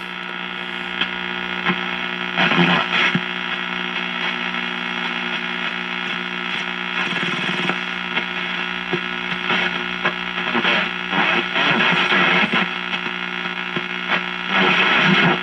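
1939 Fada Model 169 AA5 tube radio's speaker being tuned across the shortwave band: a steady hum and hiss of static, with snatches of garbled signal about three seconds in, again from about ten to twelve seconds, and near the end. The signals are the kind this set picks up as image frequencies.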